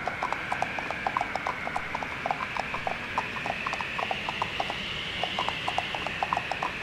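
Cartoon pony hooves clip-clopping: a quick, uneven run of hard hoof clicks, over a faint steady high hiss.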